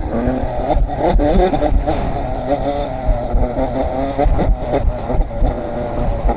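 Small off-road engine revving up and down repeatedly as the vehicle is ridden hard over dirt, with wind buffeting the microphone.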